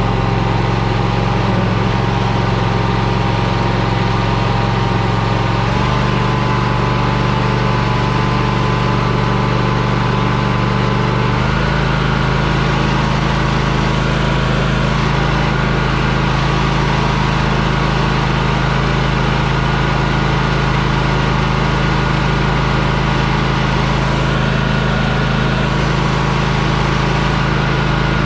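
Vehicle engine running steadily at idle, its pitch shifting slightly twice, about six and about eleven seconds in.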